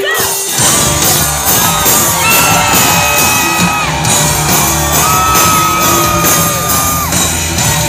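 Live rock band kicking in about half a second in, with drums, bass and guitar laying down a steady beat and long held high notes over it, amid shouts and whoops.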